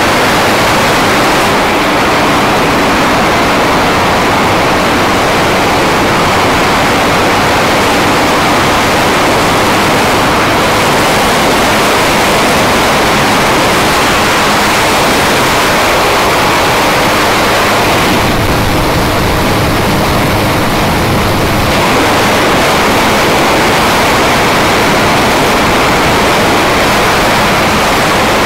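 Steady wind rush buffeting the camera microphone at road speed, with a Honda CBR250R's engine droning evenly beneath it. The hiss eases for a few seconds about two-thirds of the way through.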